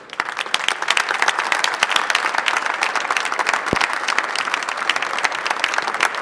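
Crowd applauding steadily, many hands clapping at once, with a brief low thump about midway.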